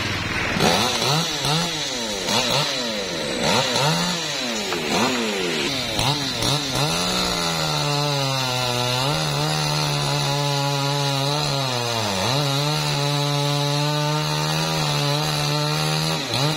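Two-stroke chainsaw revved up and down several times, then held at high revs while cutting through a limb of a jambolan (Java plum) tree, its pitch dipping briefly twice under the load; it revs up and down again right at the end.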